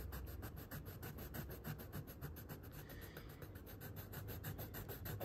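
Coloured pencil scratching across paper in quick, even back-and-forth strokes as a leaf shape is shaded in.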